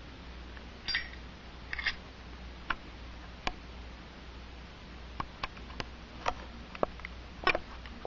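Zippo lighter app sounds from an iPod touch: two short metallic clinks about a second apart, the virtual lighter's lid opening and wheel strike, then scattered sharp clicks, over a steady low hum.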